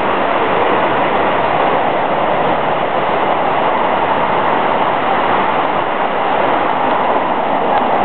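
Waterfall in full flow: a loud, steady rush of falling water, unbroken throughout.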